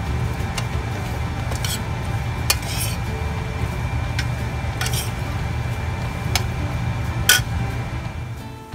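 A metal spoon stirring dry puffed rice and beans in a stainless steel skillet: a rustling scrape with sharp clinks of spoon on pan every second or so, the loudest near the end. A steady low hum runs underneath.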